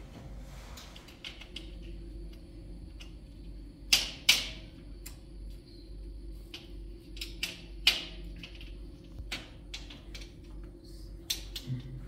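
Irregular sharp knocks and clicks, as of objects being handled, over a steady low hum; two loud knocks come close together about four seconds in and another near eight seconds.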